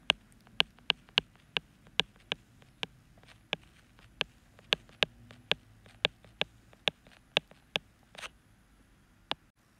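Stylus tip tapping and clicking on a tablet screen while handwriting: about twenty short, sharp clicks at irregular spacing, roughly two a second, stopping near the end.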